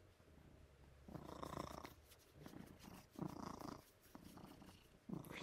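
Tabby-and-white house cat purring close up, in repeated swells about a second apart.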